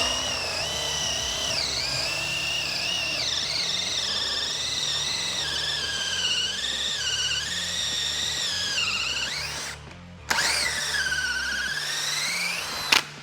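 DeWalt DCD1007 18V brushless hammer drill in third speed, driving a 32mm auger bit into wood. It gives a high whine whose pitch sags and recovers as the bit loads up. It stops for a moment about ten seconds in, then runs again with a dip in pitch. Background music plays underneath.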